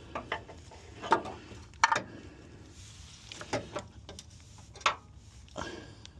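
A scattered series of short metallic clicks and knocks, about eight over six seconds, as hand tools and parts are handled, over a faint low hum.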